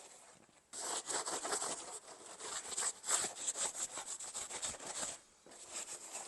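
Rapid back-and-forth rubbing strokes on a surface, starting about a second in, with a short break near the end.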